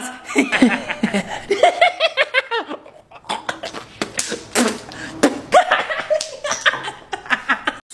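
People laughing and giggling, mixed with wordless vocal exclamations.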